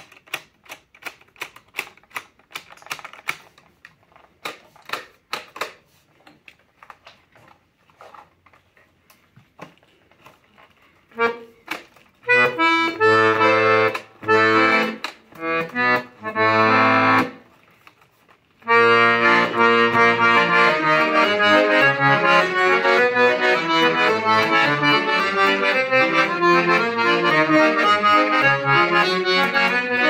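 Hohner Atlantic IV de Luxe piano accordion: for the first third a run of light clicks, then a few short chords, and from about two-thirds in, continuous playing of a melody over repeated bass notes and chords.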